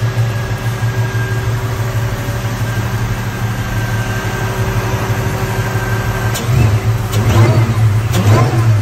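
Supercharged 1997 Mustang Cobra 4.6-litre DOHC V8, with a Kenne Bell 2.1L twin-screw blower and an open X-pipe exhaust, idling steadily under a thin high whine. It is blipped twice near the end, the revs rising and falling each time.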